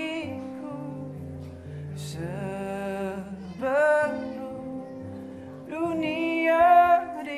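A man singing a slow song over acoustic guitar, holding long wavering notes; the loudest held note comes near the end.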